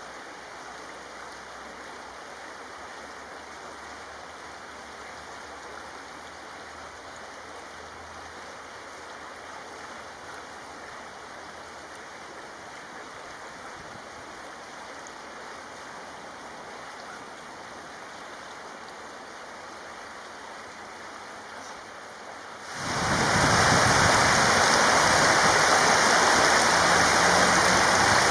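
Shallow rocky stream running, a steady rush of water over stones. About 23 seconds in it becomes much louder.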